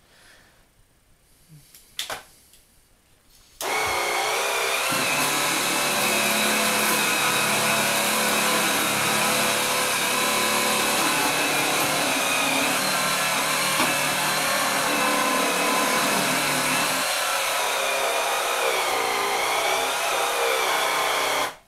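JML Swivel Sweeper G2 cordless battery sweeper running, its motor and four spinning brushes making a steady whirr with a high, slightly wavering whine. It starts suddenly a few seconds in, after a single click, and cuts off just before the end.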